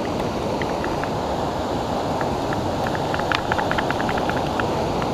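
Rushing river water with wind on the microphone. Over it comes a run of quick, irregular clicks from the fly reel's ratchet, densest from about two to four and a half seconds in, as line is worked on the reel while a hooked steelhead is played.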